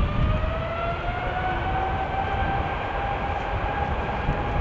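Boeing 777-200F freighter's GE90 turbofan engines spooling up for take-off. A whine rises over the first two seconds and then holds steady over a low rumble.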